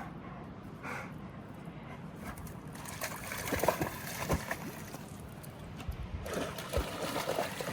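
Shallow water trickling, with a few splashes about halfway through and again near the end.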